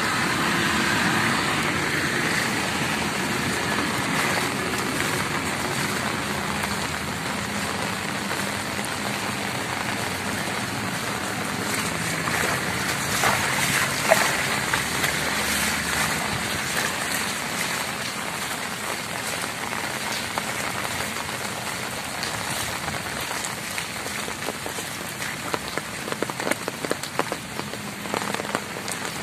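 Steady hiss and wash of rain and rainwater running across a flooded road, with a few sharp taps near the end.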